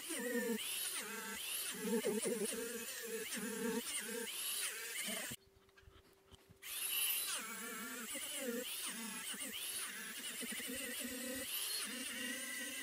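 Small rotary tool running with a felt polishing cone, buzzing as the felt is pressed onto an opal charged with diamond paste. Its pitch dips and recovers about twice a second as the load comes and goes. It cuts out for about a second around the middle, then runs on.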